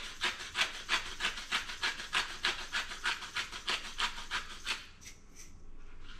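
Hand-twisted salt grinder grinding salt into a bowl: a fast run of gritty grating strokes, about four a second, that stops about five seconds in.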